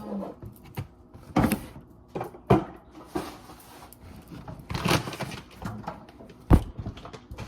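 Handling noise from refrigerator drawers, shelves and food containers being moved and set down: about five separate knocks and clatters with rustling between them, the loudest knock near the end.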